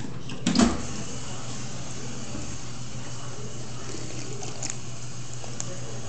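Stainless-steel drinking fountain running, its water stream splashing steadily over a low steady hum, with a thump about half a second in.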